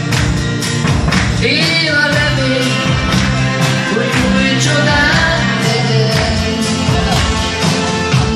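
A band playing a song: a man sings into a microphone over electric guitar, bass and a steady drum beat, amplified through the PA.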